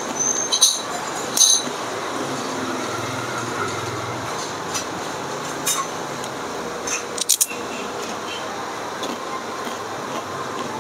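Eating at a table: a metal spoon clinking on a ceramic plate and a toasted rice cracker being broken while clams are scooped onto it, with a few sharp clinks near the start and a quick cluster of clicks about seven seconds in. A steady background rumble runs underneath.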